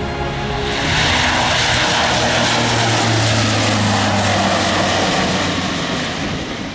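Piston-engined propeller warbird flying past, its engine noise swelling about a second in, holding loud, then fading near the end.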